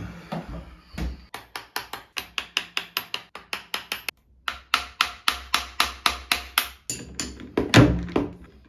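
Rapid light hammer taps, about four a second, against a drill bit stuck in a keyless drill chuck, knocking it to free it and work penetrating oil in. The taps pause briefly and then resume. Near the end, a few louder, irregular metal knocks and clanks come as a wrench is worked on the chuck.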